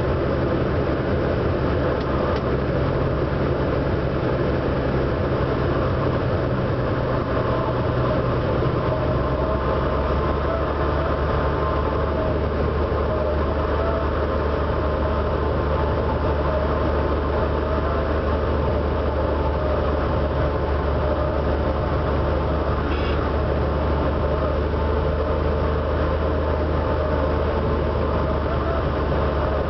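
Cessna 180 Skywagon's six-cylinder Continental O-470 engine and propeller heard from inside the cabin, a steady drone. About nine seconds in the engine note drops to a lower pitch as power is pulled back on final approach to land.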